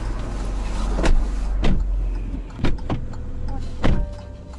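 Car idling, heard inside the cabin, with a few sharp knocks and thumps while the passenger door stands open. A heavier thump about four seconds in is the door being shut, and the outside noise drops after it.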